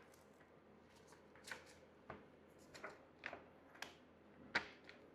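Faint handling noises, about half a dozen short clicks and rustles with the sharpest near the end, from hands smoothing a vinyl graphics sticker onto a motorbike's plastic guard.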